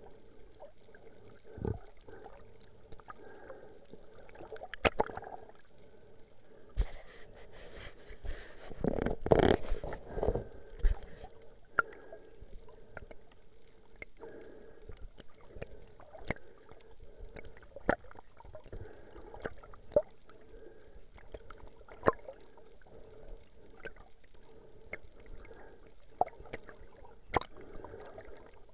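Muffled underwater sound through a diving camera's housing: scattered sharp clicks and knocks over a faint steady hum, with a louder rushing burst about eight to eleven seconds in.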